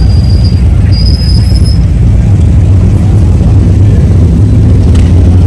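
Motorcycle engines rumbling, loud and steady, with a thin high-pitched squeal twice in the first two seconds.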